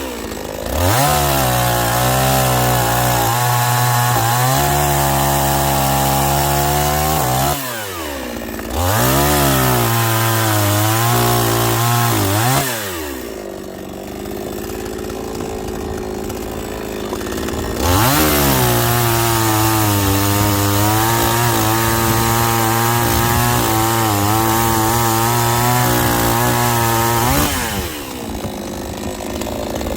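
Chainsaw cutting firewood: the engine revs up to full speed three times for cuts lasting a few seconds each, and drops back to idle between them.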